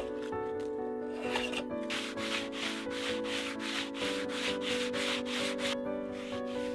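Sheet of sandpaper rubbed by hand back and forth along a bare wooden board, about four strokes a second, starting about two seconds in and stopping near the end. Background music with sustained notes plays throughout.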